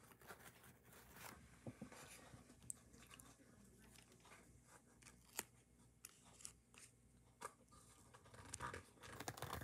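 Faint rustling and light taps of paper being handled and pressed into place, with a few sharp ticks, busier near the end.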